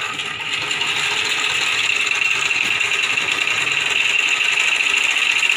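Homemade mini lathe driven by a salvaged sewing-machine motor, running with a steady whine that builds over the first couple of seconds, while a hand tool scrapes the spinning wooden dowel.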